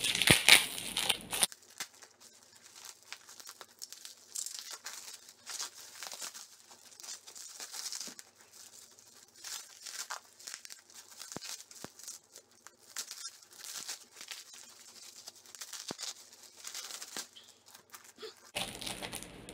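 Bubble-wrap and plastic packaging being pulled apart and torn open, crinkling and rustling. It is loudest for about the first second and a half, then turns to fainter, scattered crinkles.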